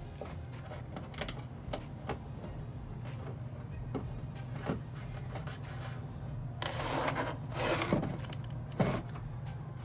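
Bundle of insulated electrical wires being pushed through a drilled hole in a school bus wall: light clicks and knocks, then two short scraping rushes about seven and eight seconds in as the wires slide through, over a steady low hum.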